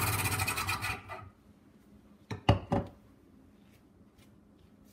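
Centrifugal juicer's motor running, then winding down and going quiet about a second in. About halfway through come three quick knocks of hard plastic cups being handled and set down.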